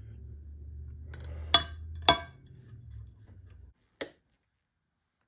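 A metal serving spoon clinks sharply twice against dishware, about half a second apart, as thick custard is spooned out, over a low steady hum; a shorter click follows about four seconds in.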